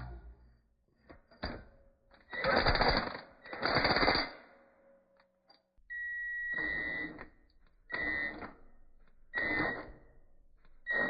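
A tool working a broken exhaust stud on an LS V8: two longer bursts of tool noise, then, over a steady high whine, shorter bursts repeating about every second and a half.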